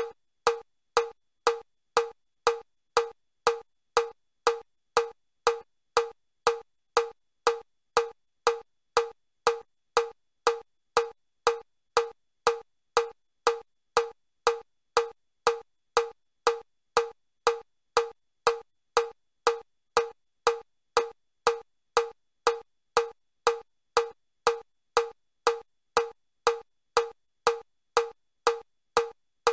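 Metronome ticking steadily at about two beats a second (120 beats per minute), each tick a short pitched click. This is the Chester step test's level 4 stepping pace, 30 steps a minute.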